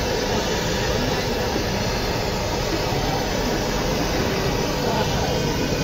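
Hand-held gas blowtorch on a canister burning with a steady hiss, its flame played over chicken pieces on a griddle to sear them.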